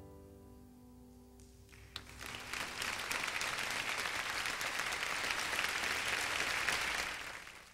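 The last chord of a grand piano piece dies away, and about two seconds in an audience breaks into applause, which holds steady and then fades out near the end.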